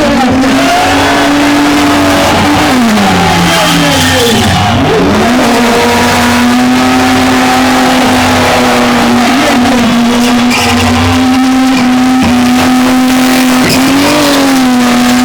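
BMW E36 engine held at high, steady revs while spinning, with the revs dropping and climbing again a few times in the first five seconds.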